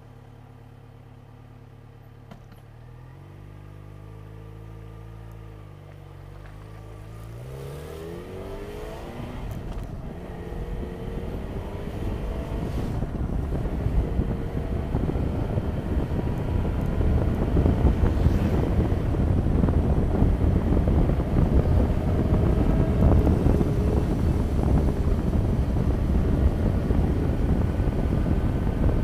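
Motorcycle engine idling, then pulling away with the revs rising as it accelerates. From about ten seconds in it runs at road speed under a loud, steady rush of wind on the microphone.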